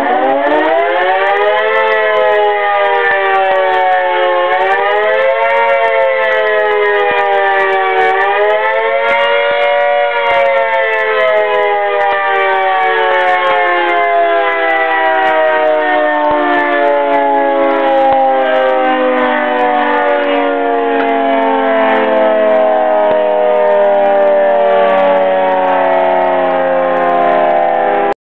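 Emergency alert siren wailing: it rises in pitch, swings up and down three times, then slides slowly down in pitch over the last two-thirds and cuts off abruptly.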